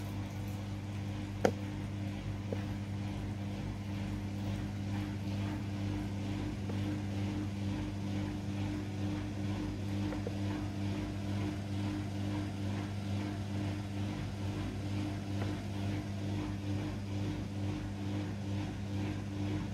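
Samsung Eco Bubble WF70F5E0W2W front-loading washing machine at the start of its spin stage: the drum motor runs with a steady hum and a faint even rhythm as the drum turns, with one sharp click about a second and a half in. The motor is running on freshly replaced carbon brushes, the repair for its 3E error, and works normally.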